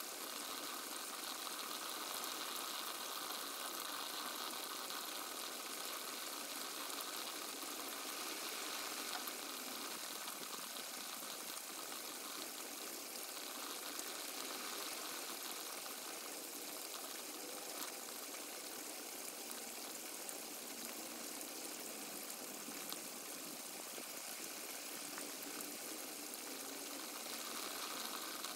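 Steady hiss of rainfall, with a few faint ticks.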